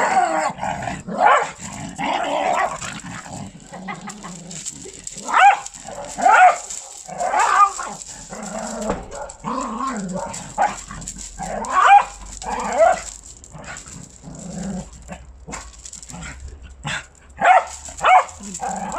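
A small Patterjack terrier (Patterdale × Jack Russell cross) barking repeatedly in short bursts of one to three barks, with pauses between.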